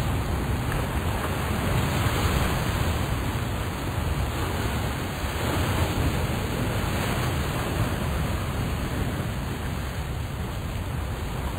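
Steady rushing noise with a flickering low rumble, even throughout, with no distinct events.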